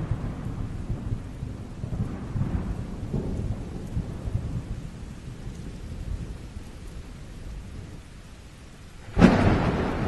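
Thunderstorm: rolling thunder rumbles low and steadily over rain. A sudden loud thunderclap breaks about nine seconds in.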